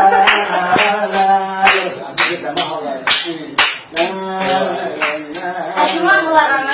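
A voice singing long, wavering mawwal notes while hands clap a steady beat, about two claps a second.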